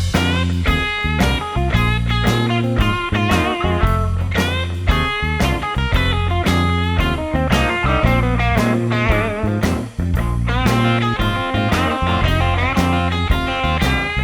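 Background music: electric guitar playing bending lead lines over bass and drums with a steady beat.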